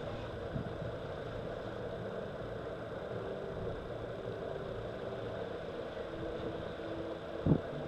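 A steady engine hum with a few faint held tones, and one short, loud low thump near the end.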